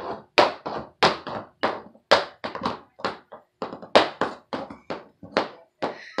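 Adult-size red high-heeled shoes on a toddler's feet, their heels knocking on a hardwood floor in uneven steps, about three a second, as she clomps and dances around in them.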